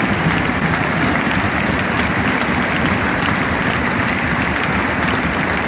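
Large stadium crowd applauding steadily, a dense wash of many hands clapping.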